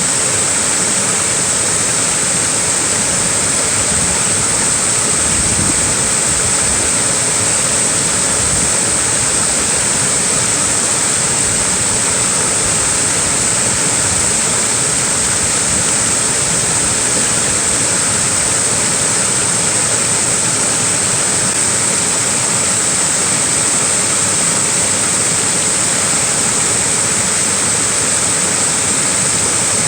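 Small waterfall splashing steadily, an even rushing of falling water with no breaks or changes.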